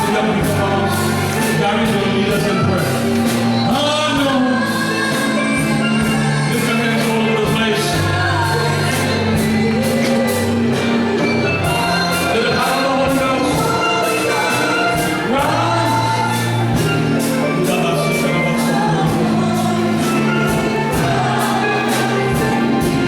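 Gospel music: voices singing over sustained low bass notes and a steady drum beat.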